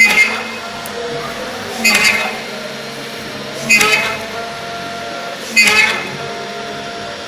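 Homemade CNC drilling and milling machine working through a repeating cycle: a short, loud, pitched whirring burst about every two seconds, four times, each fading within half a second, over a steady machine hum.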